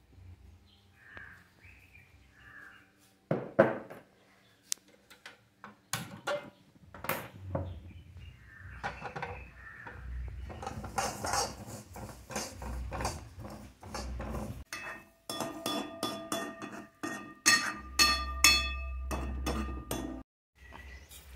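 A steel spoon stirring and scraping in a stainless-steel pan, with repeated clinks and knocks against the metal. In the second half the strikes leave the pan ringing.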